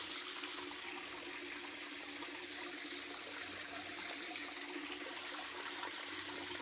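Steady trickle of water running over rock.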